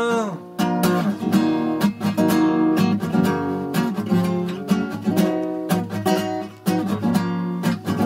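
Classical acoustic guitar strummed in a steady rhythm, playing an instrumental break between the sung verses of a song.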